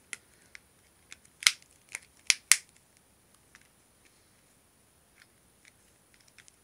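Plastic snap-on back cover of an LG Optimus 4X HD smartphone being pressed into place: a quick series of sharp snapping clicks as its clips catch, followed by a few faint ticks.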